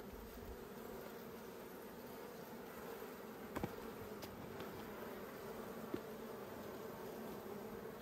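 Honeybees humming steadily around an opened nucleus hive, faint, with a couple of small clicks in the middle.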